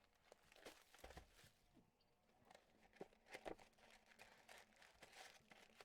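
Faint tearing and crinkling of a trading-card pack wrapper being opened, with scattered light clicks and rustles of cards being handled.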